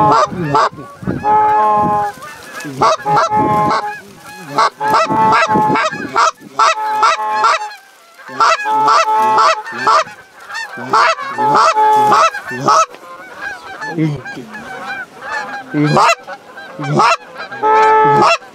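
Canada goose calls blown hard and close in quick strings of honks and clucks, with short pauses between strings, calling to an approaching flock of Canada geese to draw it in.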